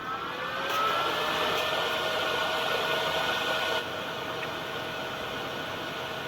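Nail dust collector's fan motor switching on and spinning up with a rising whine, then running steadily with a rushing hiss of air; about four seconds in it becomes quieter.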